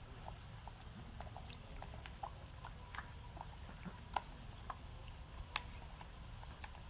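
Faint chewing and mouth clicks of a baby monkey eating, scattered irregular small clicks over a low steady hum.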